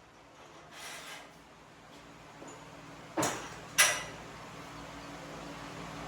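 Two sharp metal clanks about half a second apart, the second louder and ringing briefly, as steel tools or parts knock together. A faint scrape comes before them and a steady low hum follows.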